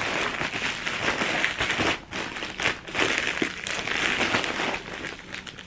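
Plastic poly mailer bag crinkling and rustling as it is handled and pulled open, with a brief pause about two seconds in.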